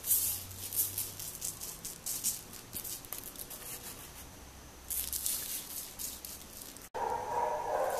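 Diamond dust glitter scooped with a spoon from its jar and sprinkled onto a flower on a plastic sheet: grains rattling and hissing in several bursts, cut off suddenly near the end.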